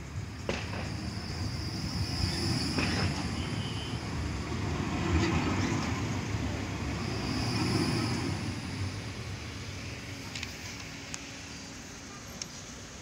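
Bombardier Flexity Outlook electric tram passing close by on its rails: a low rolling rumble that builds and then fades as it moves away. A high whine comes and goes twice, and there are a few clicks.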